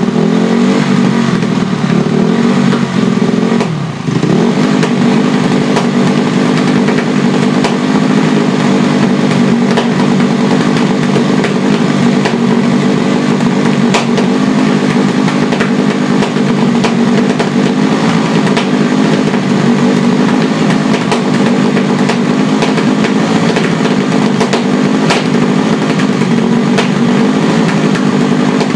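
Honda CRF250R's single-cylinder four-stroke engine running steadily at a fast idle, sagging briefly about four seconds in and then picking back up, with scattered sharp pops. The engine was put back together without the rebuild it needed, and the owner says it backfires and will not idle.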